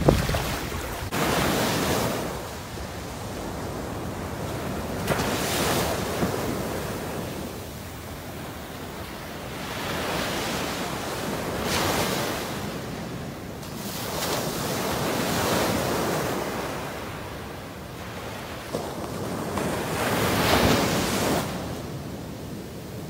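Ocean waves breaking and washing in, swelling and fading every few seconds, with some wind on the microphone.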